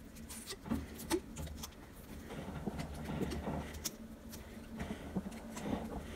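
Hands working self-fusing silicone tape around a flexible spiral metal shower hose: scattered small clicks and rubbing of the ribbed metal coils and tape under the fingers.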